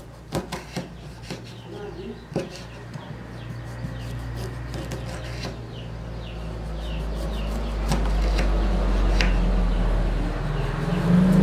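Kitchen knife slicing a lime thinly on a wooden cutting board, the blade tapping the board in several sharp clicks over the first few seconds. A low rumble builds steadily louder through the second half and becomes the loudest sound.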